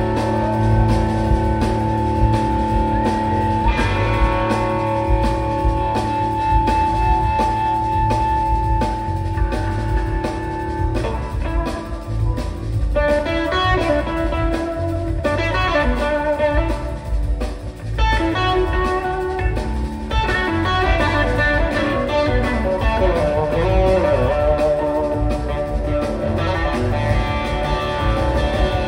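Live blues-rock band playing an instrumental passage led by electric guitar. The guitar holds a long sustained note for about the first ten seconds, then moves into quick gliding, wavering runs in the middle, over a steady bottom end from the band.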